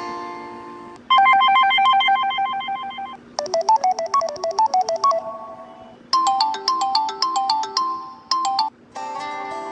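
Samsung Galaxy S5 stock ringtones played one after another. The end of one tune fades out, then three short electronic chime melodies follow, each about two seconds long with short gaps between them, and another tune begins near the end.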